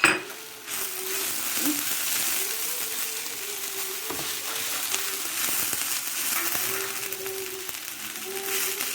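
A sharp knock at the start, then the paella base of rice, vegetables and fish frying loudly in a hot pan from about a second in, a steady hiss of sizzling.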